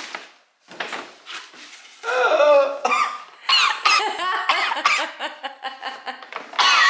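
Cardboard and plastic packaging rustling and clattering as a boxed toy is pulled from a big gift box, then, about two seconds in, loud excited squeals, gasps and laughter with sharply swooping pitch.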